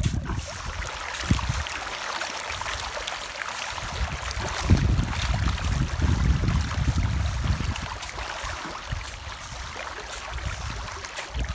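A crowded school of tilapia feeding at the pond surface, with many small splashes and slaps making a continuous crackling patter of water. Gusts of wind rumble on the microphone underneath, strongest in the middle.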